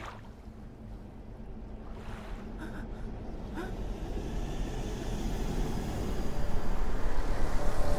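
Low rushing rumble of wind and sea in an animated film's soundtrack, swelling steadily louder.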